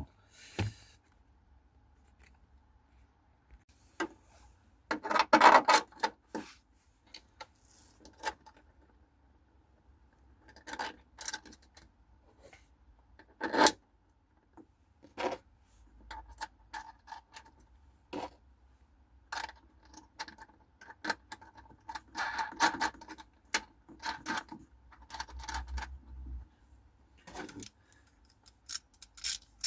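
Intermittent metallic clinks, scrapes and rubbing as an earthing cable and its fixings are handled and fitted by hand onto a bolt on the van chassis, with quiet gaps between.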